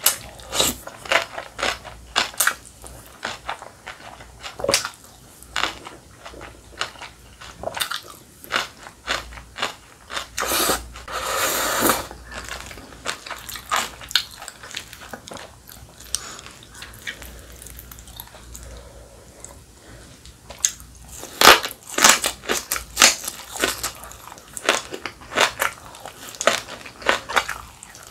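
Close-up eating sounds: chewing and crunching of spicy cold naengmyeon noodles and green onion kimchi, with a long slurp of noodles about ten seconds in and a run of louder crunches in the last third.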